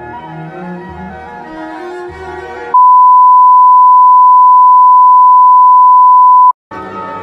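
Orchestral music with bowed strings is cut off abruptly by a very loud, steady electronic beep of a single pitch. The beep lasts about four seconds, then stops, and after a brief silence the music comes back near the end.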